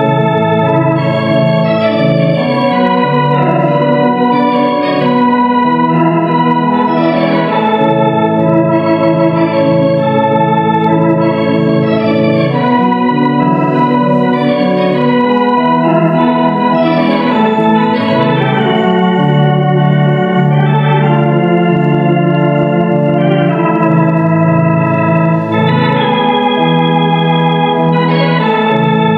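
Organ music: a slow melody over held chords, the notes moving every half second to a second.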